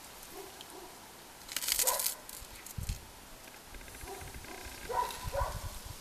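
A dog barking three times: one short bark about two seconds in, then two more close together near the end. A brief hiss comes with the first bark.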